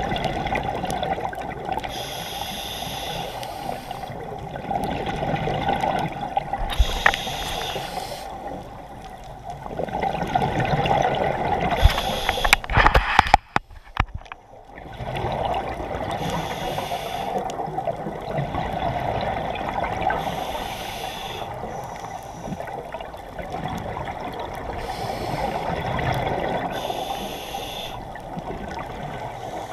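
Scuba diver's regulator breathing underwater: bubbly exhalations recur about every four to five seconds over a steady watery rush. There is a brief clatter and a short dropout about halfway.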